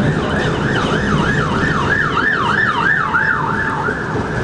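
Emergency vehicle siren sounding a fast yelp, its tone sweeping up and down about three times a second, over the low running rumble of a moving tram.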